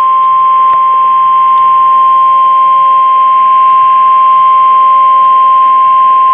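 NOAA Weather Radio 1050 Hz warning alarm tone: one loud, steady, unbroken beep, the attention signal that a warning message is about to follow. Faint radio static clicks sit underneath it.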